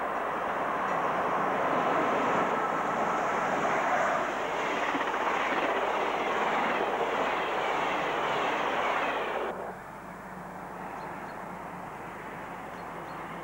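Electric locomotive-hauled passenger train running through the station at high speed, a loud steady rush of wheels on rail and passing coaches. The noise cuts off abruptly about two-thirds of the way in, leaving a quieter steady background.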